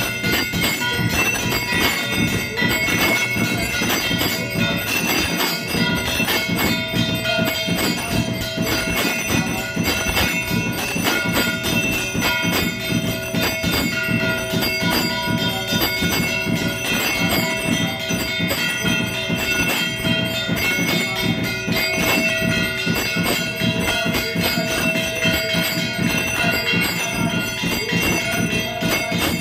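Temple bells rung without pause for the aarti, a dense run of rapid metallic strikes over lingering ringing tones.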